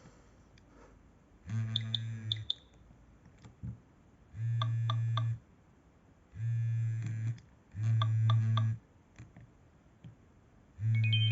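Nokia E65 mobile phone alerting in pulses with its vibrating alert on. There are five buzzing bursts of under a second each, with short high beeping ringtone notes inside them and quiet between.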